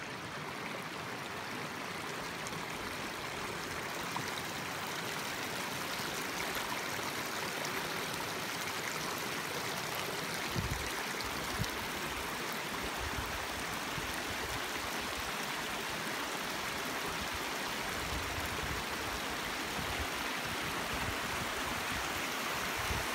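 Shallow rocky forest stream rushing steadily over boulders and small rapids, growing slightly louder in the first few seconds. Some low rumbling joins it from about halfway through.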